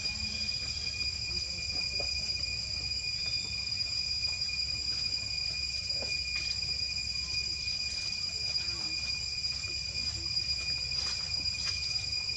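Insects droning steadily in high, unbroken tones, with a few faint clicks.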